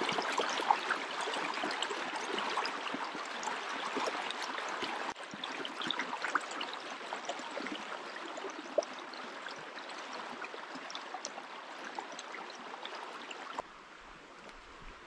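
Small forest stream rushing and splashing over a little cascade, a steady gurgle of flowing water. The water sound drops suddenly to a softer level about five seconds in. Near the end it gives way to a much quieter outdoor hush.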